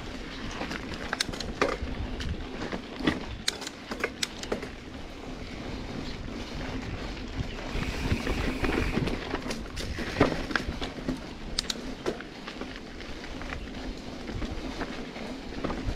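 Mountain bike descending a rough dirt trail: tyres rolling over dirt and stones, with wind on the microphone, a steady hum underneath, and frequent sharp clicks and knocks from the bike rattling over bumps.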